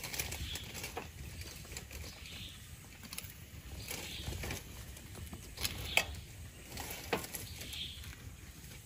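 A silicone spatula scraping and tapping on toasted bread and a plastic plate: scattered soft clicks and scrapes, the loudest about six seconds in, over a faint steady outdoor background.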